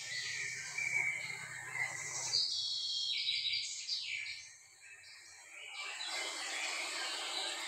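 Birds chirping over a steady rush of waterfall water. The water sound dips briefly about halfway through and then comes back.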